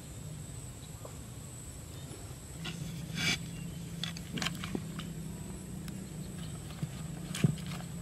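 A ceramic tile being moved over a hole in sandy ground: a few short clicks and scrapes, the first about three seconds in and the sharpest near the end, over a steady low hum.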